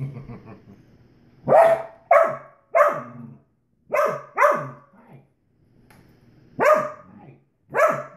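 A Dalmatian making about seven short, yowling 'talking' barks, each falling in pitch, in clusters of two or three with pauses between. She is grumbling in protest at being refused food from the table.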